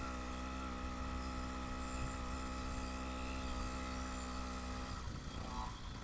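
Motorized bicycle's small engine running at a steady pitch under light throttle while riding; the steady note drops away about five seconds in.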